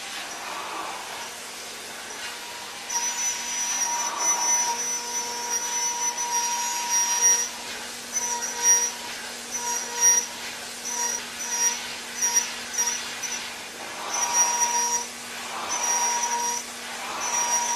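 CNC milling machine cutting metal: a steady hiss with a high whine from the cutter. The whine sets in about three seconds in, then comes and goes in short pulses, over a constant low hum.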